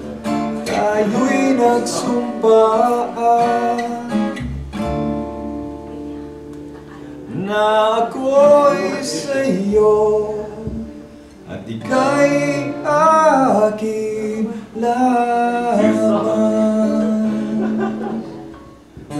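A small live group playing a song: an acoustic guitar strummed with keyboard accompaniment, and a man singing into a microphone in phrases with short pauses between them.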